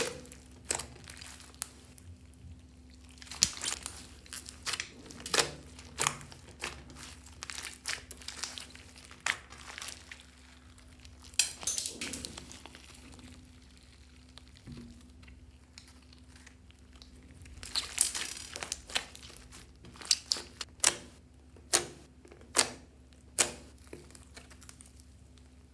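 Hands squeezing and kneading a thick mass of glittery slime mixed with clay: irregular sticky crackling and sharp clicks as air pockets in the slime pop. It quiets for a few seconds in the middle, then gives a run of separate clicks near the end as fingers press into it.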